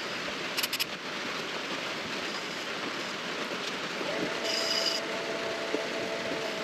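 Midi lathe spinning a pen blank while sandpaper is held against it, giving a steady hiss. A few clicks come just under a second in, and a thin whine joins about four seconds in.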